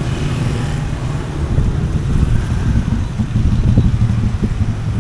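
Street traffic: motor vehicle engines running close by, a loud steady low rumble.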